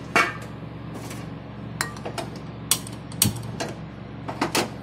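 Gas stove burner being lit: a string of sharp, irregular clicks from the knob and spark igniter, about eight in all, the loudest near the end, until the burner catches.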